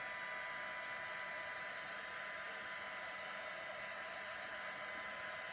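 Handheld craft dryer blowing steadily, with a faint high whine over its rushing air, as it dries chalk paste on a wooden rolling pin.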